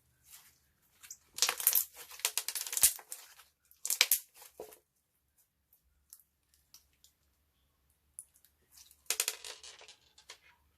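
Slime being worked by hand, crackling and popping with trapped air, in three bursts: a long one starting just over a second in, a short one about four seconds in, and another near the end.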